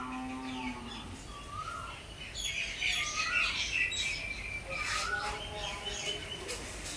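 Birds calling: short rising-then-falling calls repeated every second or two, with a burst of higher chirping in the middle.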